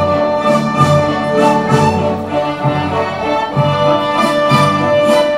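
Orchestra playing, with the violin section bowing a sustained passage.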